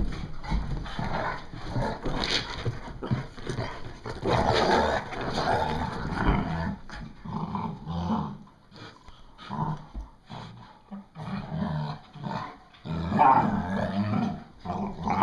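Dogs growling in uneven bursts while they wrestle in play, with a quieter stretch in the middle.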